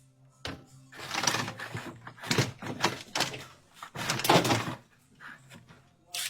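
Several bursts of scraping and knocking, as of parts or tools being handled, over a faint low hum.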